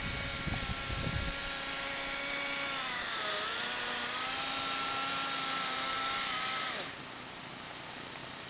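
Small nitro glow engine of a radio-controlled Blizzard running at high revs with a steady buzzing whine; its pitch dips briefly about three seconds in and recovers, then falls away suddenly near the end, leaving a fainter hiss. Low rumbling thumps come in the first second or so.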